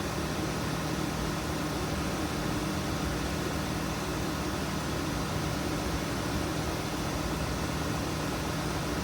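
2016 Volkswagen Tiguan idling with the AC switched on: a steady, even engine and fan hum.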